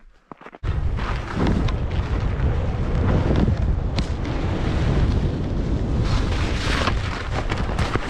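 Wind buffeting the microphone: a loud, low, gusty rush that starts suddenly about half a second in.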